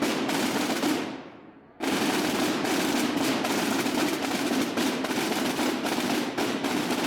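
Massed Semana Santa drums (tambores) beaten together in a dense, continuous rattling roll. The roll dies away about a second in, then comes back abruptly just under two seconds in and carries on.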